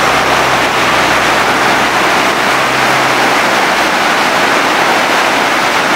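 Muddy floodwater of a small stream in spate after a night thunderstorm, rushing and churning in a loud, steady rush.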